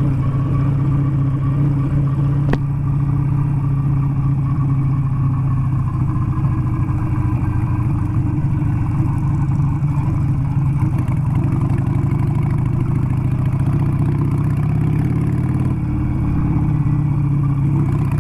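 Harley-Davidson V-twin motorcycle engine running steadily while the bike rides a dirt road, heard from on the bike. A single sharp click about two and a half seconds in.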